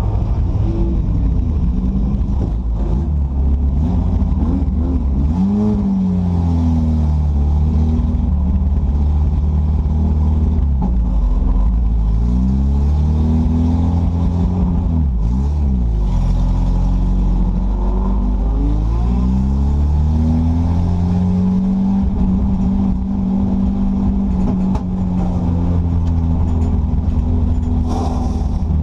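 Sport compact dirt-track race car's engine heard from inside the cockpit, loud and continuous. Its pitch climbs and drops back several times as the car pulls away, then holds steady for the last few seconds.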